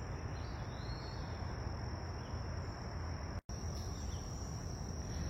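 Crickets chirring in a steady, high-pitched chorus over a low rumble of background noise. The sound drops out for an instant about three and a half seconds in.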